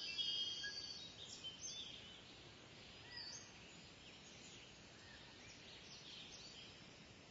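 Faint outdoor birdsong: several birds chirping and whistling, busiest in the first second or so, over a quiet background hiss.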